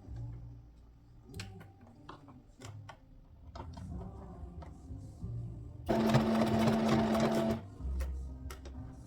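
Domestic sewing machine: light clicks and a low hum for several seconds, then about six seconds in a loud burst of fast stitching with a steady whine, lasting under two seconds and stopping abruptly.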